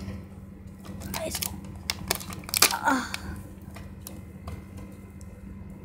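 Kinder Joy's plastic egg tray and its sealing lid being pulled open by hand: a series of sharp clicks and crinkles, mostly in the first three seconds, over a low steady hum.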